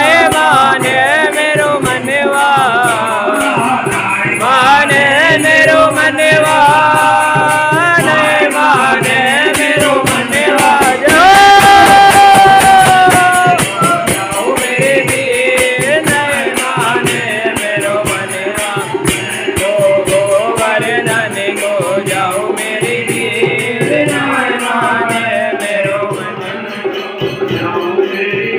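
A devotional bhajan sung live by men's voices over a dholak drum, a keyboard and jingling hand cymbals, with rattling percussion keeping a steady beat. About eleven seconds in, the singer holds one long high note.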